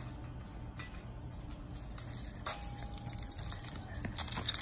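Low outdoor rumble with faint scattered taps, then quick running footsteps on a concrete walk growing louder over the last half second.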